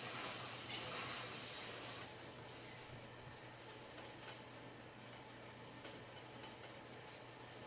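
Carb cleaner hissing through a fuel injector being flushed, for about two seconds, then fading into a string of about seven sharp light clicks.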